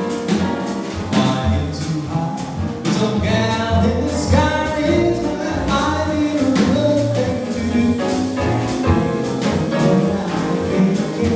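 A male jazz vocalist singing held, sliding notes over a band accompaniment with bass and regular drum strokes.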